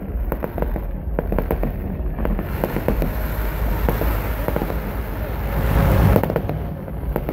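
Fireworks going off: rapid pops and crackles, then a dense hissing rush that builds to its loudest about six seconds in, followed by more pops.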